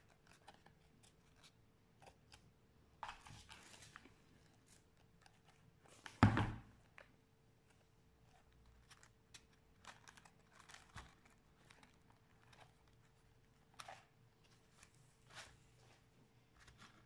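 Quiet handling sounds of hands working foam craft pieces on a plastic-covered table: scattered light rustles and clicks, with a louder thump about six seconds in.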